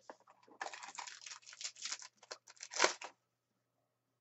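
A foil trading-card packet being torn open and crinkled by hand. The crackling runs for about two and a half seconds, is loudest just before it stops, and then it goes quiet.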